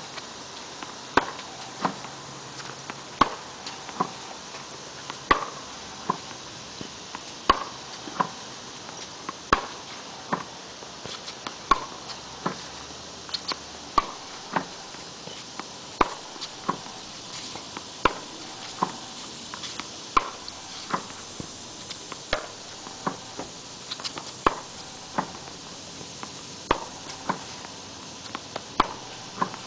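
Tennis racket hitting balls fed by a ball machine: a sharp pop of strings on ball about every two seconds, each followed by a softer knock of a ball.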